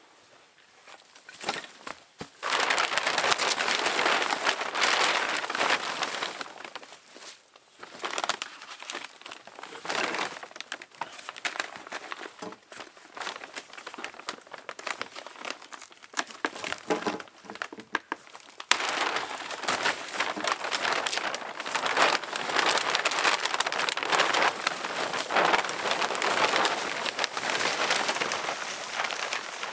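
Clear plastic sheeting crinkling and rustling as it is pulled down from a log shelter's doorway and dragged over the ground. It comes in long noisy stretches, with a quieter, patchier spell in the middle.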